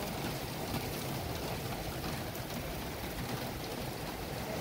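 Steady thunderstorm rain falling on a concrete driveway: an even hiss that does not let up.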